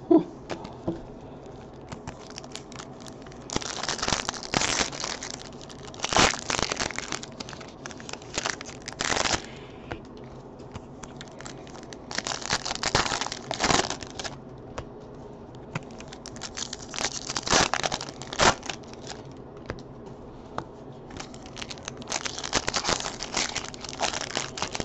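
Topps Chrome football card pack wrappers crinkling and tearing as packs are opened by hand, in about six bursts a few seconds apart.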